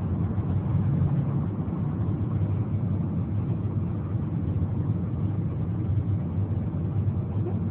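Steady road and engine rumble heard from inside a moving car's cabin while it drives at speed.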